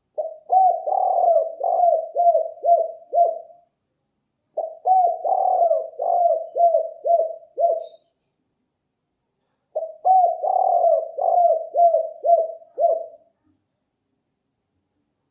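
Spotted dove cooing: three phrases, each a run of quick coos lasting about three and a half seconds, with short pauses between them.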